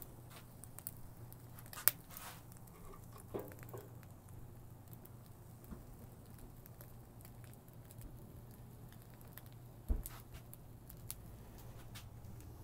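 A few sharp clicks and knocks over a faint low hum, as a rack of ribs hanging on a metal hook is lifted out of a barrel smoker past its rebar hanging bars. The sharpest click is about two seconds in and a heavier knock about ten seconds in.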